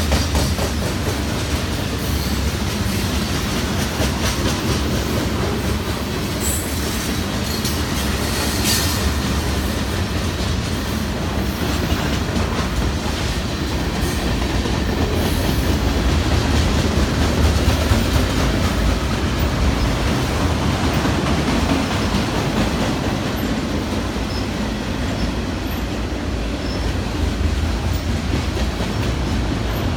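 A long freight train's cars rolling past at track speed: a steady rumble of steel wheels on rail, with a few brief high wheel squeals here and there.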